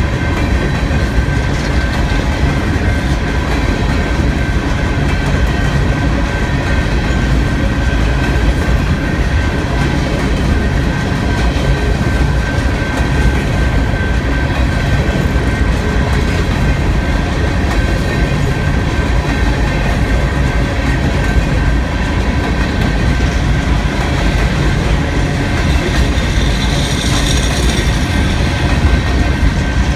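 Open-top coal hopper cars of a freight train rolling steadily past on steel rails: a constant low rumble with wheel clatter, over a thin steady wheel squeal. A higher squeal rises briefly near the end.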